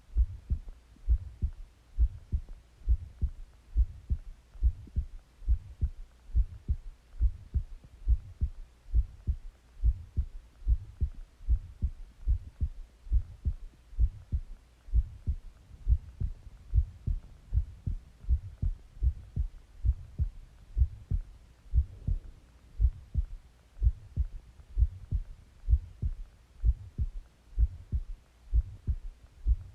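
A person's heartbeat heard close up, as if through the chest: steady, regular low thumps that keep an even beat throughout.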